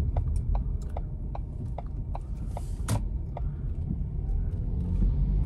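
Car cabin noise while driving: a steady low road and engine rumble, with a light regular ticking about two and a half times a second through the first few seconds.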